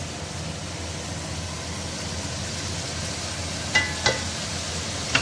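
Chicken and tomatoes sizzling in oil in an aluminium pot while being stirred with a wooden spatula. A few sharp knocks of the spatula against the pot, with a brief metallic ring, come near the end.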